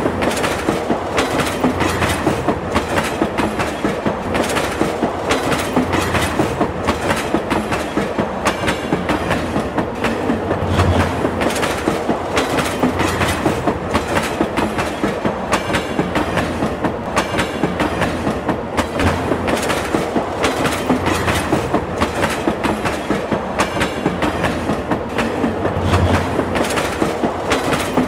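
Train running along the track: a steady rumble with a continual rhythmic clickety-clack of wheels over rail joints.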